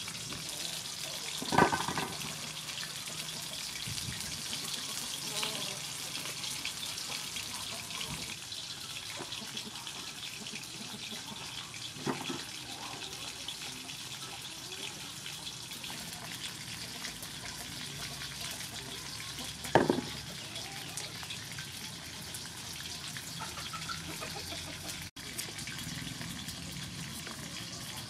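Vegetable peeler scraping the skin off fresh cucumbers in a run of wet, rasping strokes. A few sharp knocks come through, the loudest about a second and a half in and again near twenty seconds.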